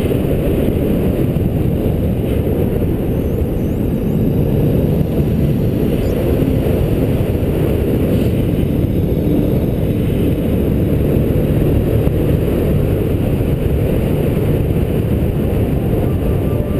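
Steady wind rushing over an action camera's microphone as it flies under a paraglider, a dense low rumble with no break.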